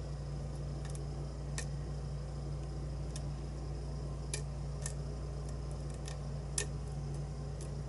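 Lock pick and tension wrench working the pin stack of a Tea Party challenge lock: sparse, irregular light metallic clicks, about nine, the sharpest about six and a half seconds in. A steady low hum runs underneath.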